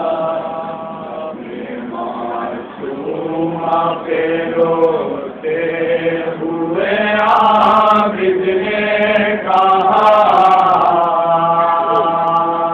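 Men chanting a nauha, a Shia lamentation dirge, in long held notes that bend slowly and break off for short pauses.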